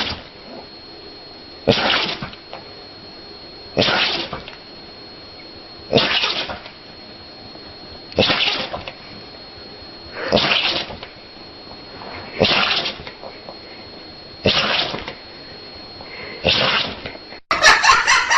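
An animal sneezing again and again, a sharp burst about every two seconds, eight times, with a faint steady high whine underneath. In the last second it gives way to a louder, different sound.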